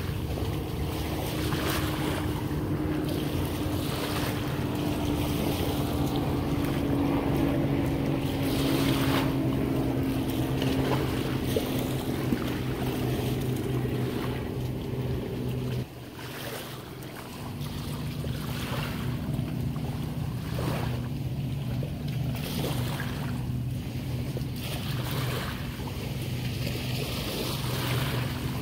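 Steady hum of a motorboat engine, slowly dropping in pitch, with wind gusting on the microphone. The hum breaks off briefly about sixteen seconds in, then goes on a little lower.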